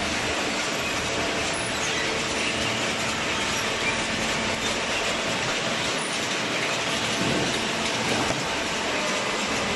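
Cardboard baling machinery running: a steady mechanical rattle and hum.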